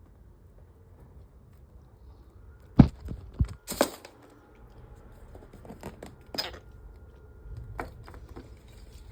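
Handling noises: a run of sharp knocks and clicks a few seconds in, then a few more scattered clicks and light rustles.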